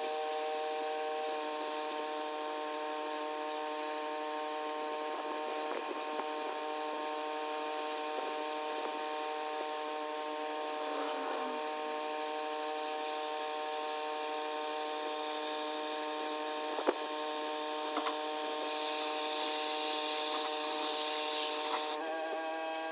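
Pressure washer running with a steady hum and a hiss of spray, the hiss growing louder in the second half and easing off near the end, with a sharp click partway through.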